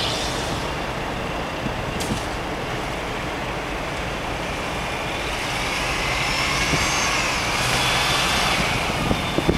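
Chevrolet Astro minivan's engine running hard as the van drifts on snow. It grows louder in the second half as the van swings back toward the listener, with a rising whine as the revs climb.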